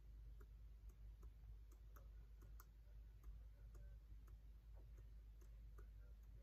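Faint, irregular light clicks, a few a second, over a quiet room's steady low hum.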